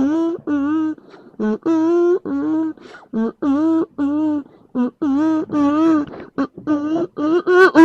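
A pitched, nasal voice-like squawking, repeated over and over in quick short bursts of uneven length, each call dipping and bending in pitch, with a longer call falling in pitch near the end.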